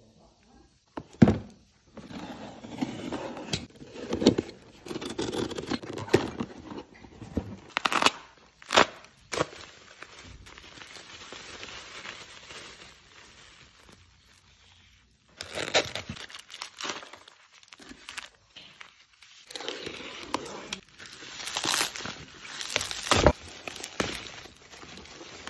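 Plastic packaging crinkling and tearing in irregular bursts as clear wrap and black bubble wrap are pulled off and handled, with several sharp clicks and taps from hard cases and a cardboard box being set down.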